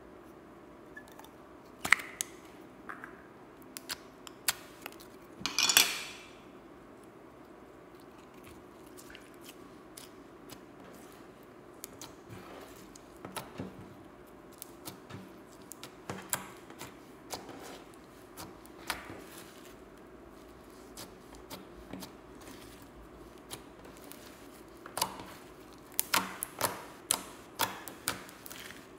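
Slime being handled and mixed: scattered sharp clicks and pops, with a longer crackling burst about six seconds in and a quick run of clicks near the end.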